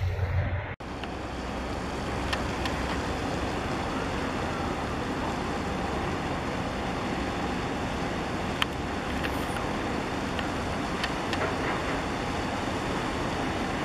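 A brief dropout under a second in, then a steady rumbling wash of noise from a loaded container ship passing close by, with a few faint ticks.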